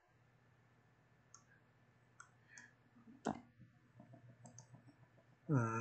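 A few scattered clicks of a computer mouse and keyboard, short and separate, the loudest about three seconds in.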